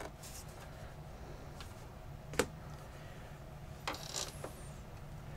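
Quiet handling of a plastic computer housing and its metal chassis while a mounting screw is worked loose. There is one sharp click about two and a half seconds in and a few faint scrapes and rustles a little later.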